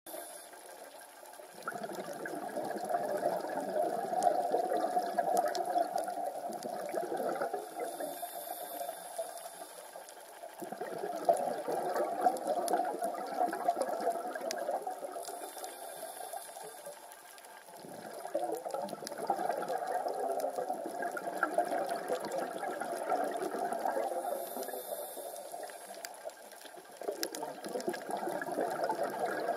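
Scuba diver breathing through a regulator underwater: bursts of exhaled bubbles gurgle and fade in a slow cycle, four breaths about eight seconds apart.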